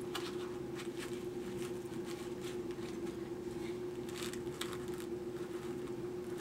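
Faint rustling and a scattering of small clicks as a small cardboard and clear-plastic gift box is handled and its contents picked at, over a steady low hum.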